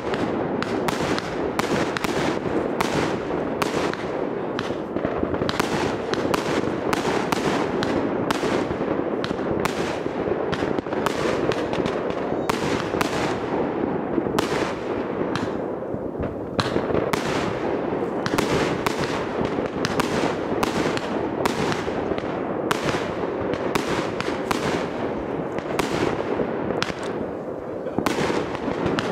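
Aerial fireworks bursting in the sky, with sharp bangs coming one or two a second over a steady background din.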